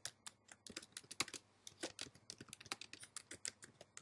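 Faint typing on a computer keyboard: a quick, uneven run of keystrokes, several a second, as a line of text is entered.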